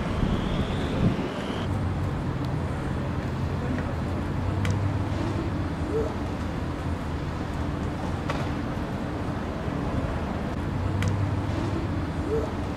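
Steady city street traffic noise with a low, on-and-off hum, faint voices and a few sharp clicks. A faint rising whine stops about two seconds in.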